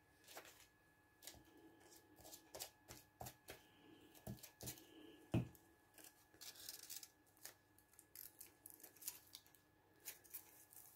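Faint rustling and scattered small clicks and crackles of paper being handled, with the pages of a thick collage journal being leafed through near the end.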